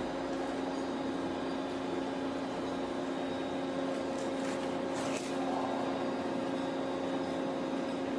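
A machine runs with a steady hum over a constant whir, and a couple of faint clicks come about four and five seconds in.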